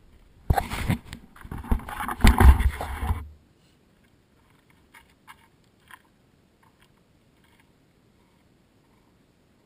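Gloved hand rubbing, scraping and knocking on a GoPro camera as it is handled and set back on its handlebar mount. The handling noise stops abruptly about three seconds in, leaving near silence with a few faint ticks.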